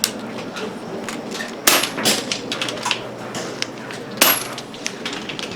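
Several air rifles firing at irregular intervals along a shooting line: a scatter of sharp cracks and pops, loudest about a second and a half in and again about four seconds in.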